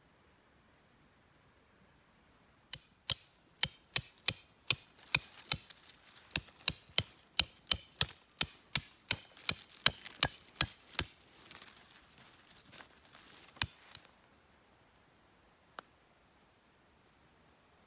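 A rapid series of sharp knocks or strikes, about three a second for some eight seconds, then two more single strikes after a pause.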